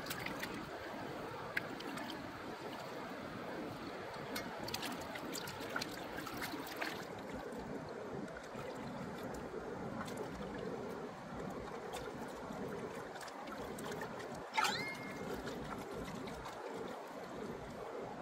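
Shallow river water running and lapping around hands at work in it, with occasional small clicks and splashes as squid are rinsed and cut in the water. One short, sharp sound with a quick rise in pitch stands out about three-quarters of the way through.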